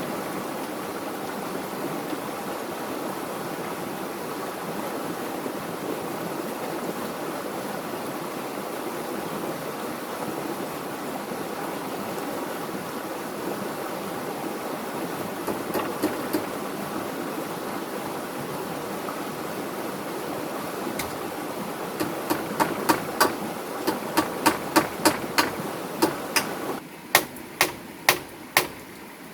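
A steady rushing noise that cuts off suddenly near the end. Over it come a couple of sharp knocks about halfway through, then a fast run of sharp knocks, about two or three a second, in the last quarter.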